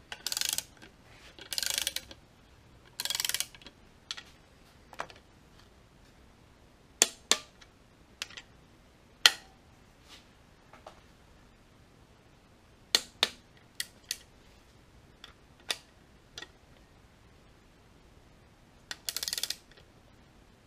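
Socket ratchet spinning valve-cover bolts down in three short bursts, then single sharp metallic clicks spread over the middle seconds as a click-type torque wrench reaches its 9 ft-lb setting on each bolt. One more burst of ratcheting comes near the end.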